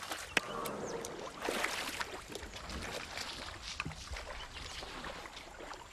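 Water splashing and sloshing around an elephant lying in water for its bath, with scattered small splashes and drips.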